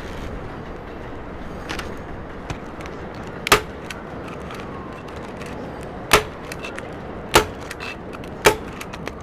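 Four sharp knocks or strikes, about a second or so apart, over a steady rushing noise like wind.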